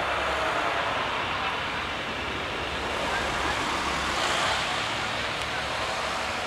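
Steady roar of city road traffic, an even noise with no distinct events.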